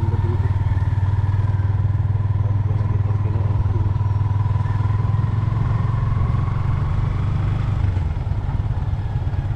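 Motorcycle engine running steadily while riding along, a constant low drone with a slight rise in engine pitch midway.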